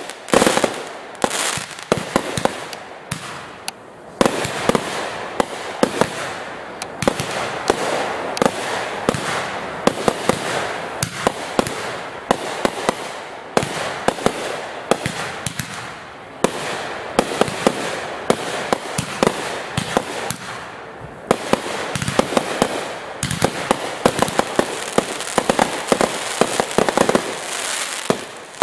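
Aerial fireworks display: a dense, continuous run of sharp shell bursts and reports over steady crackling, with brief lulls about four seconds in and again about three-quarters through.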